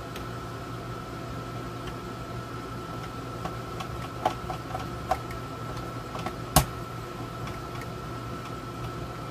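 Steady hum of a room air conditioner, with a few small sharp metal clicks and taps as screws and parts go back into a radio chassis. The loudest click comes about two-thirds of the way through.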